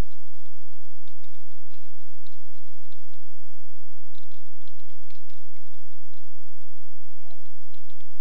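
Computer keyboard typing: a few short runs of keystrokes with pauses between.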